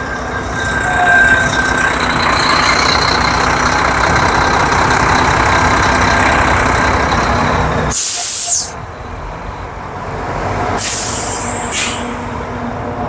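Street traffic with a heavy vehicle running close by, and two sharp hisses of air brakes, one about eight seconds in and a longer, softer one near eleven seconds.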